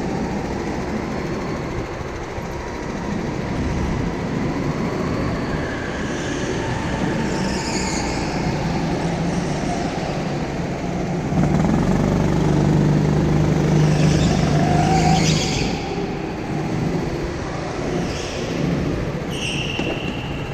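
Go-kart engine running under load as the kart laps an indoor track, louder for a few seconds about halfway, with other karts running nearby. A few brief high-pitched squeals rise above it.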